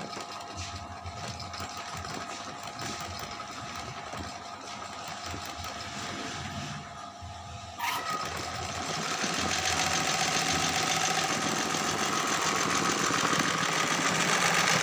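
Industrial sewing machine darning a tear in cloth. The motor hums steadily, then about eight seconds in, after a click, the machine starts stitching fast and runs louder and evenly until it stops abruptly.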